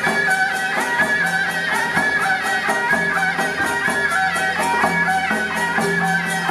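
Taiwanese temple-procession music: a wavering, reedy melody over a low steady tone and a quick, even beat of cymbals and drums.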